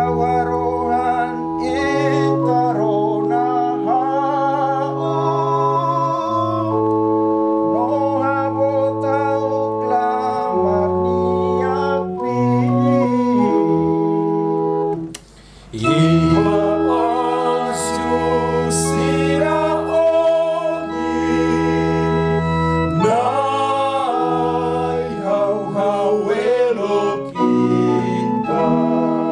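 A man singing a responsorial psalm over an organ sound from an electronic keyboard, which holds chords that change every second or two. The music breaks off briefly about halfway through, then picks up again.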